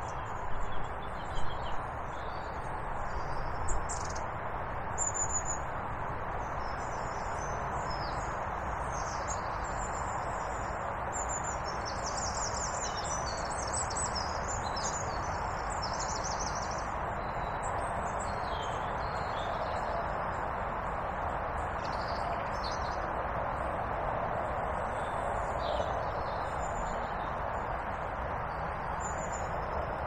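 Small songbirds chirping and trilling over a steady rush of running water from the brook, with the busiest bird song a little before the middle.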